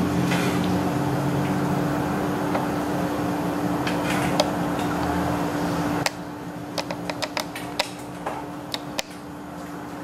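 Steady hum of a kitchen range-hood fan, quieter after about six seconds. In the second half, a metal ladle clinks a dozen or so times against the pot and the ceramic bowl as soup is spooned in.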